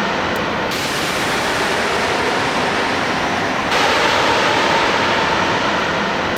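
Jet airliner landing overhead: a loud, steady rush of engine noise with a faint steady whine. The noise changes abruptly twice, about a second in and near four seconds, where clips are spliced.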